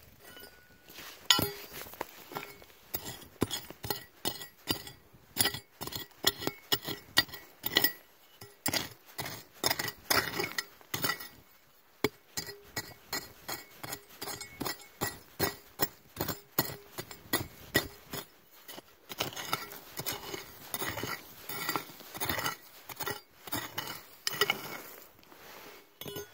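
Metal-bladed hand digging tool chopping into dry, stony soil, its blade clinking and scraping against small stones in repeated strikes, about two a second.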